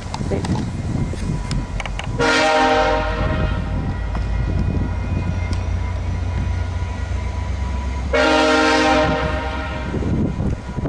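Diesel locomotive horn sounding two blasts about six seconds apart, each about a second long, over a steady low rumble.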